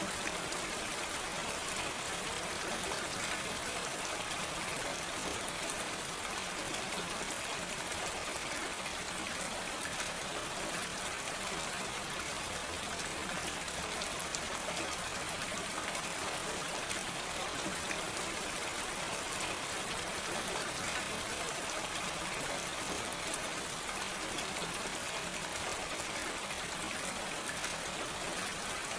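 Steady gentle rain with no thunder, a dense even patter of drops falling on surfaces.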